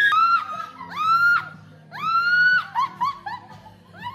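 High-pitched shrieks from people: a few long squeals that rise and hold, then shorter, quicker squeals like shrieking laughter in the second half.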